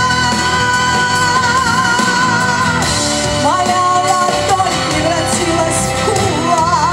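A woman singing into a microphone over instrumental backing, holding long notes with vibrato: one held note for almost three seconds, then a rising phrase into another held note about halfway through.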